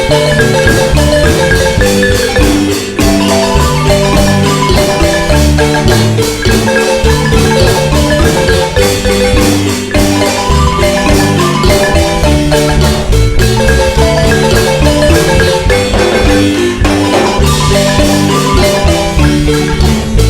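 Marimba ensemble playing a lively dance tune, quick struck melody notes over a steady bass line.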